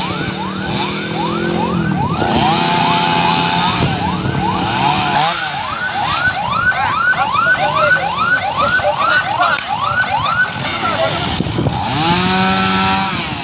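Emergency vehicle siren sounding in repeated rising-and-falling sweeps that speed up into a fast yelp about halfway through, over steady vehicle noise.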